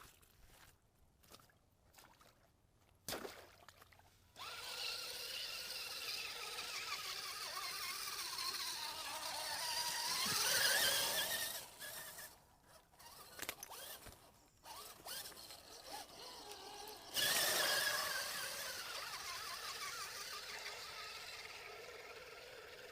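Axial AX10 Deadbolt RC truck's electric motor and gears whining under throttle through mud, in two runs. The first climbs in pitch to its loudest about ten seconds in and cuts off. After a few seconds of clicks, the whine starts again about seventeen seconds in and slowly dies away.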